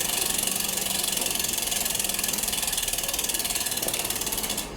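Freehub of a Mavic road bike wheel ratcheting as the wheel turns: a rapid, even train of pawl clicks that cuts off suddenly near the end.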